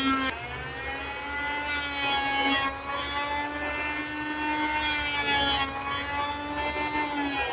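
Electric hand planer running with a steady motor whine. Three times its blades bite into wood with a loud, high rasp: at the start, about two seconds in, and about five seconds in.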